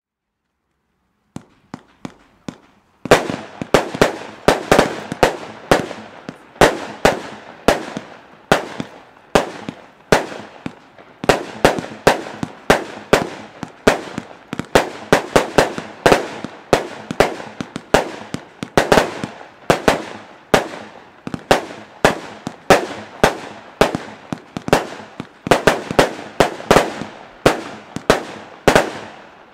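Weco Overpressure 176-shot 20 mm compound fireworks cake firing: a few faint pops, then from about three seconds in a steady run of sharp shots and bursting stars, roughly two to three a second, each with a short echoing tail.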